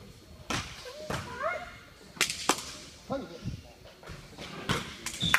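Several sharp smacks ringing in a gymnasium, about five spread through a few seconds, among men's short calls.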